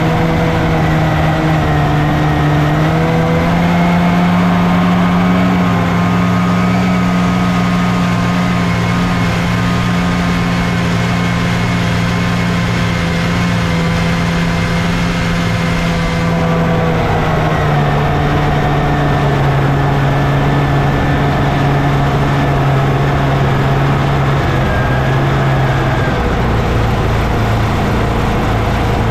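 1979 Scorpion TKX 440 Whip snowmobile's two-stroke engine running under load as the sled breaks trail through deep snow, heard from the hood. The engine note picks up slightly about three seconds in, eases off past the midpoint, and drops again near the end.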